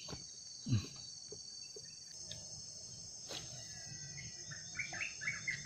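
Steady high-pitched drone of crickets or other insects, with a single thump less than a second in and a short run of chirps near the end.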